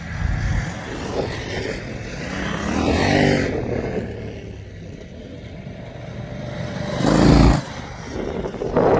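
Adventure motorcycle engines riding past on a gravel road; the nearest bike is loudest about three seconds in, its pitch dropping as it goes by. A second loud, low rumble comes about seven seconds in.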